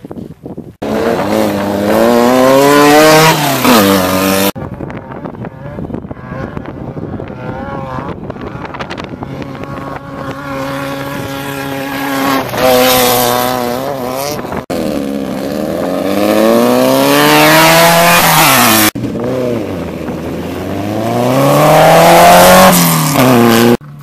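Off-road desert race buggy engines revving hard as the vehicles pass, their pitch climbing as they accelerate and dropping away. There are several separate passes, and each one cuts off suddenly.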